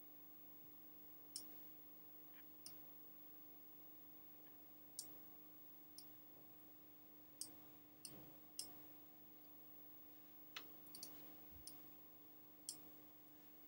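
About a dozen short computer mouse clicks at irregular intervals, one close pair about eleven seconds in, over a faint steady hum.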